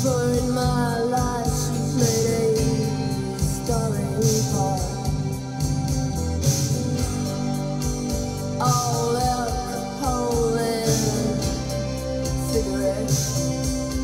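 Vinyl record playing a slow song: a woman singing over guitar, her voice coming in phrases near the start and again about two-thirds of the way through.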